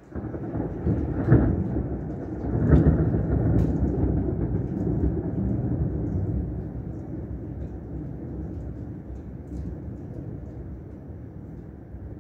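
Thunder breaks suddenly over heavy rain, a loud low rumble that swells twice in the first three seconds, then rolls on and slowly fades.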